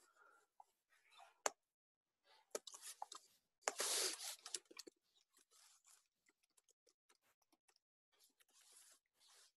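Faint computer mouse clicks, then a brief rustling noise, then light keyboard typing as a series of quick small taps through the second half.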